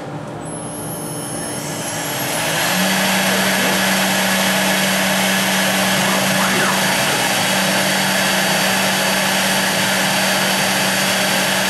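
CNC router spindle, run from a variable frequency drive, spinning up over the first few seconds with a whine that slides in pitch, then running at steady speed with a constant hum from about three seconds in. Dust extraction runs underneath as a steady rushing noise.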